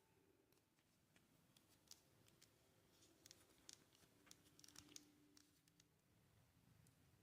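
Near silence: quiet room tone with faint scattered small clicks and ticks, clustered between about two and five and a half seconds in.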